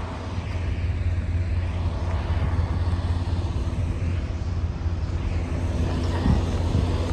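Diesel semi-truck engines running with a steady low rumble.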